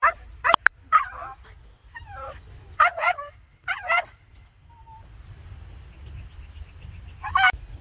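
Small dogs giving short, high yips and whines, about seven separate calls, several bending upward in pitch, with a steady low rumble underneath.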